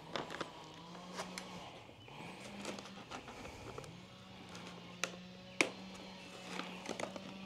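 Side cutters snipping zip ties and plastic packaging being handled as a new e-bike is unwrapped, with a few sharp clicks, the clearest about five seconds in. A low steady hum that rises in pitch a few times runs underneath.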